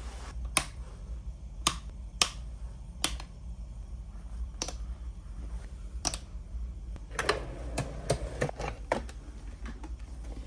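Sharp single clicks of switches on a bedside table's control panel being pressed, one every second or so. Near the end comes a quick run of clicks and knocks as a drawer is pulled open, over the steady low drone of the ferry.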